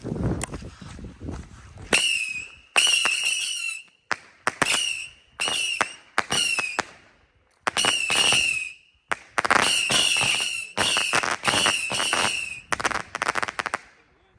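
Whistling fireworks going off one after another, about a dozen shots. Each starts with a sharp pop and then a shrill whistle that dips slightly in pitch. Some whistles overlap in a fast run about two thirds of the way through.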